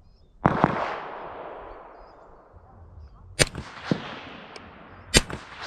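AR-15 rifle firing three single shots, about half a second, three and a half and five seconds in, each crack followed by an echo that rolls away.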